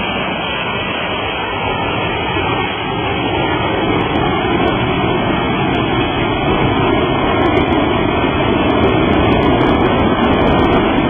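Boeing 747-200's four jet engines at takeoff power as the aircraft climbs away after liftoff: a loud, steady roar that grows somewhat louder in the second half.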